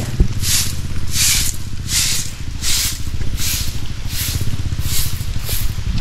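Walking footsteps scuffing along a paved road, a hissy scrape at each step about one and a half times a second, over a steady low hum.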